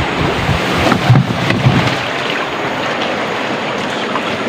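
Steady rushing noise of wind on the microphone and water on a flooded river, with knocks and rubbing in the first two seconds.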